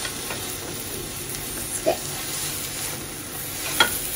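Egg sizzling steadily in a rectangular tamagoyaki pan over a gas flame. The slotted metal turner knocks against the pan twice, about two seconds in and near the end, and the second knock is the louder.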